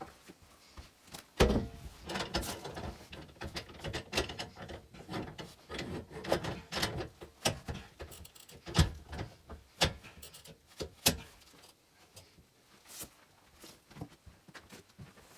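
Irregular knocks, clatters and scraping of hard objects being handled, with a few sharp louder knocks about a second and a half in and again around nine to eleven seconds in.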